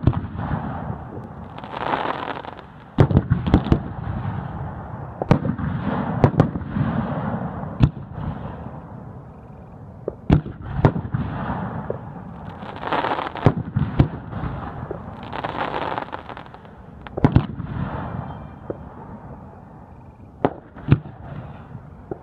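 Aerial firework shells bursting overhead one after another: about twenty sharp reports at uneven intervals, some in quick clusters, over a continuous rolling rumble.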